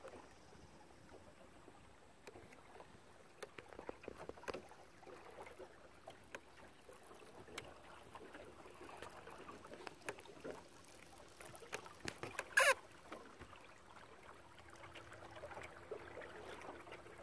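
River water lapping and splashing along a jon boat's hull as it moves under its electric trolling motor, with scattered small splashes and clicks; the motor's faint steady hum shows near the end. About twelve seconds in comes one brief high squeak, the loudest sound.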